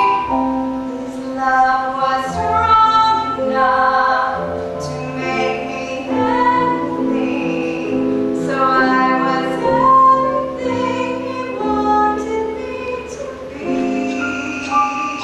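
A woman singing a slow show tune, holding long notes, over instrumental accompaniment.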